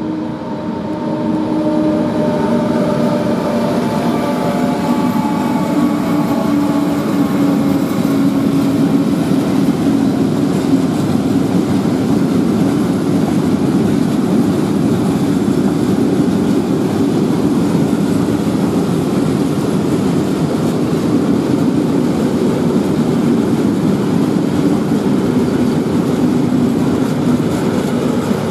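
Two diesel locomotives coupled together pass close by, their engine drone dropping slightly in pitch as they go. Then comes the steady rumble of a long train of freight hopper wagons rolling past on the rails.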